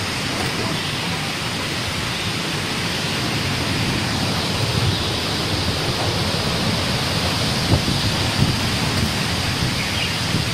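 Heavy typhoon rain and wind as a steady, even rush, with a couple of small knocks about three quarters of the way through.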